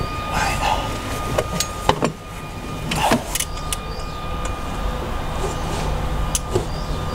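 Scattered light clicks and knocks of hands and metal fittings as a V-belt is worked onto the alternator and water-pump pulleys. Under them runs a steady low rumble with a faint steady whine.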